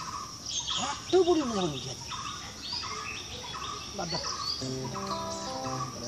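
Outdoor ambience of birds chirping over a steady high insect drone, with a few low gliding calls about a second in. From about two-thirds of the way through, a series of held tones stepping between pitches joins in.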